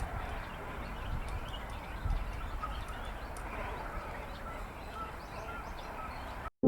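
Outdoor ambience with scattered short bird calls over a low, uneven rumble. It cuts off abruptly near the end.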